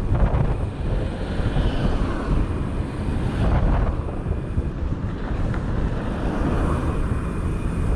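Wind buffeting the microphone of a moving bicycle, a steady low rushing rumble that swells and dips.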